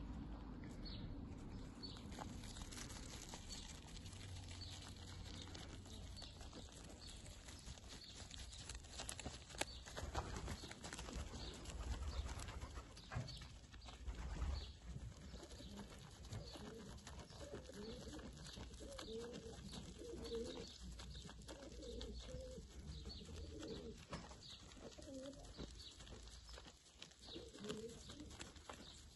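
Goat kid chewing fresh Swiss chard leaves close up, a run of small crunching and rustling clicks. A bird calls softly in the background through the second half.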